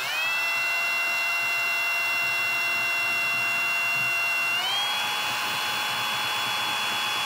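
Kobalt cordless drill's motor whining steadily as it drives a toggle-bolt screw through a steel mounting bracket into the wall. Its pitch steps up just after the start and again about two-thirds of the way through as it speeds up.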